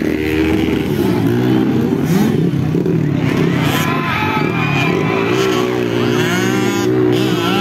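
Motocross dirt bike engine revving, its pitch rising and falling again and again.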